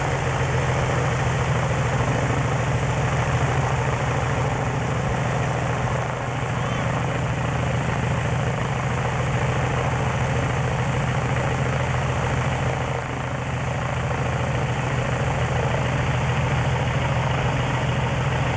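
Piper Pawnee C crop-duster's six-cylinder Lycoming piston engine idling steadily on the ground, just after starting, with the propeller turning.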